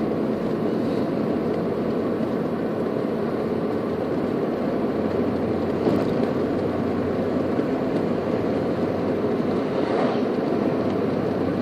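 A car driving at steady speed, heard from inside the cabin: a steady hum of tyres on the road and engine.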